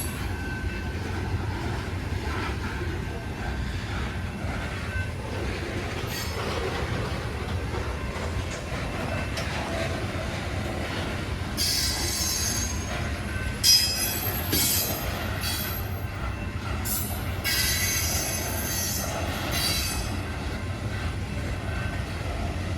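Loaded coal hopper cars of a long freight train rolling past at low speed with a steady low rumble. Wheels squeal high-pitched in several stretches through the second half, with a single sharp clank just past halfway.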